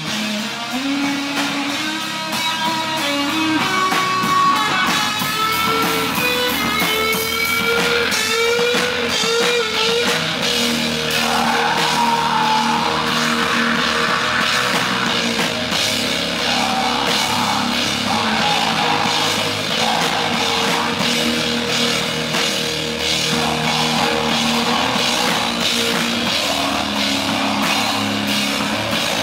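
A live rock band playing, with electric guitar, bass and drum kit. A high melodic line climbs in pitch over roughly the first ten seconds, then the full band carries on with steady drumming.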